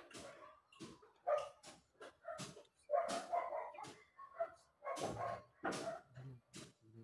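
A dog barking repeatedly, about two short barks a second, with brief gaps between runs.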